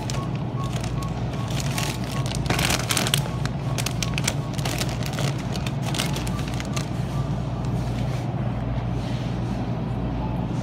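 Shop-floor ambience: a steady low hum with scattered clicks and rustles, the loudest cluster about three seconds in, and a faint high beep repeating quickly during the first two seconds.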